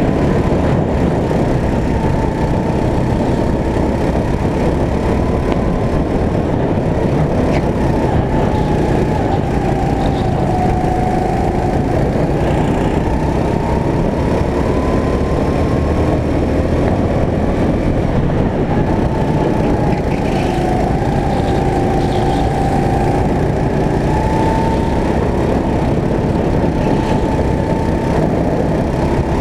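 Racing go-kart engine heard from the driver's seat, running hard and loud, its pitch rising and falling slowly as it revs up and eases off through the lap.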